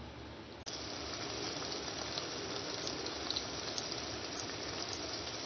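Chicken gizzard gravy bubbling and sizzling in a pot: a steady hiss with small pops. It turns louder abruptly about half a second in, as the pot is shown uncovered.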